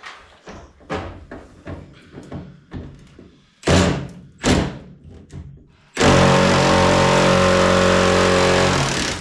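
Light metal knocks and clicks, then two heavy clanks, then a power tool running loud and steady for about three seconds before stopping just before the end.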